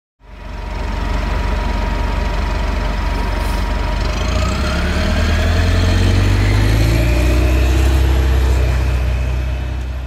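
City transit bus engine running with a low rumble, then from about four seconds in a whine rising in pitch as the rumble grows louder, the sound of the bus pulling away and accelerating. It fades in at the start and tails off at the end.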